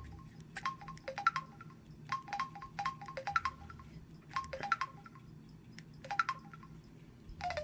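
Samsung Juke cell phone's short key-press beeps as its menu buttons are pressed, coming in quick runs of two to four beeps, several times over.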